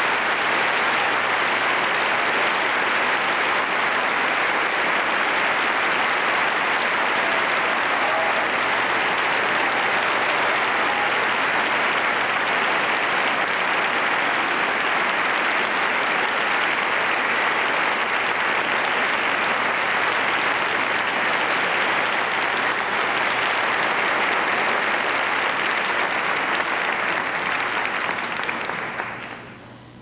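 Theatre audience applauding steadily at the curtain call of a ballet, the applause fading out near the end.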